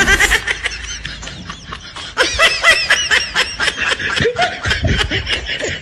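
Rapid, high-pitched snickering laughter in quick short bursts, getting louder about two seconds in.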